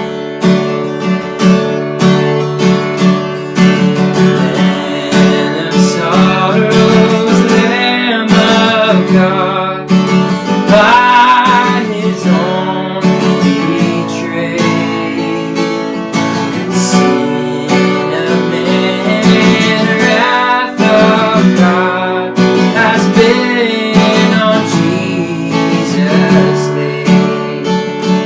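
Acoustic guitar strumming chords, with a voice singing a slow worship-song melody over it from about six seconds in.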